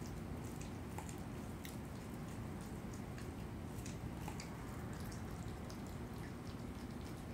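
Opossum chewing and tearing at a rotisserie chicken carcass: irregular small wet clicks and smacks over a steady low background hum.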